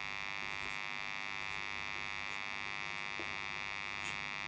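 Steady electrical buzz in the recording, a mains hum made of many even tones with the strongest band high up. Faint taps of a marker writing on a whiteboard come through about three and four seconds in.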